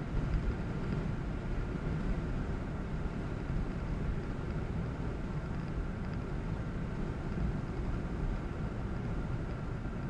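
Steady low rumble of a car driving along the road, its tyre and engine noise unbroken throughout, with a faint steady hum above it.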